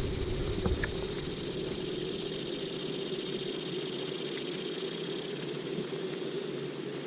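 Steady hum and hiss of a running motor, even and unchanging throughout.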